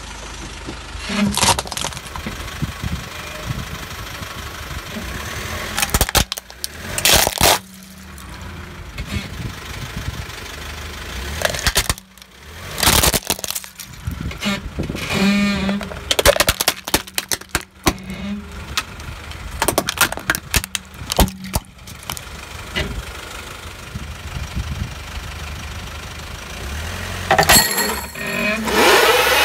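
Car tyre slowly rolling over and crushing objects on concrete, with a series of sharp cracks and snaps of breaking plastic over a steady engine hum. Near the end, drinking glasses shatter loudly under a wooden plank pressed down by the tyre.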